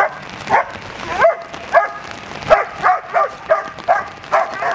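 Black German Shepherd barking rapidly and repeatedly, about two to three barks a second, while lunging on the leash: aggressive guard barking at a helper with a bite sleeve in protection work.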